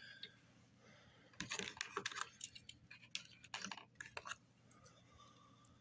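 Diecast toy cars and their plastic packaging being handled: clusters of small sharp clicks and clatter, about a second and a half in, around three seconds in, and again about four seconds in.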